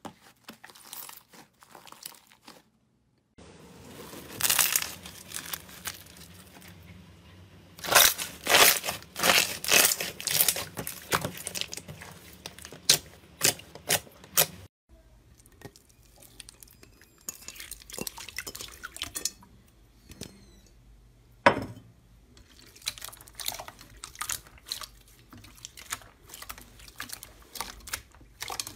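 Hands pressing, stretching and squishing slime: irregular bursts of sticky crackling and sharp popping clicks as air pockets burst, densest about eight to twelve seconds in. A brief silent gap about three seconds in breaks the sound.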